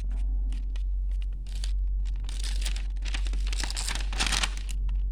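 Paper rustling and scratching in short, dry bursts, thicker in the second half, over a steady low hum.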